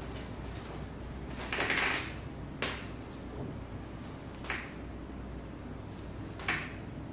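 Gloved hands massaging a shoulder: a brief hiss a little under two seconds in, then three sharp clicks about two seconds apart, over a low steady hum.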